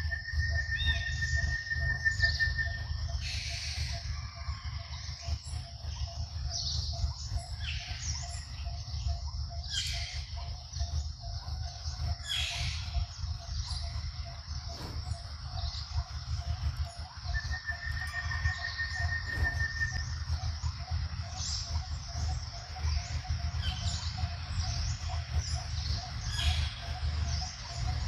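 Birds chirping outdoors, with two short, even trills, one near the start and one a little past the middle, over a steady high hum and a low rumble.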